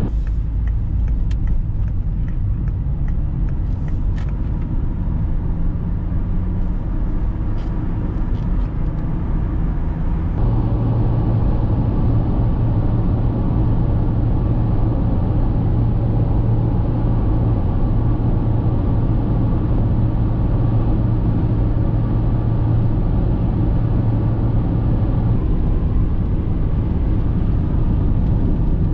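Car driving, heard from inside the cabin: steady road and engine rumble. A few light ticks in the first ten seconds, then from about ten seconds in a steadier low engine drone at motorway speed.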